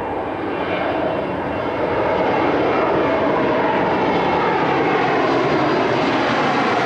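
Boeing 727-200 climbing out just after takeoff: the steady roar of its three Pratt & Whitney JT8D turbofans, growing louder about two seconds in as the jet comes overhead, with a slight falling pitch near the end.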